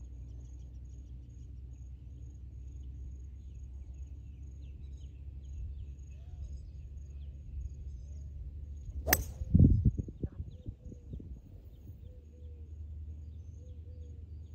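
A golf club striking the ball off the tee about nine seconds in: one sharp crack, followed by a second or so of low thumping. Before and after it, a steady low rumble with faint bird chirps.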